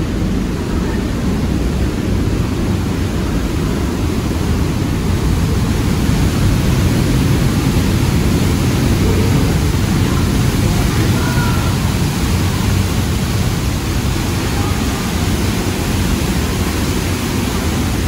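Waterfall's water pouring in a loud, steady rush, heaviest in the low range.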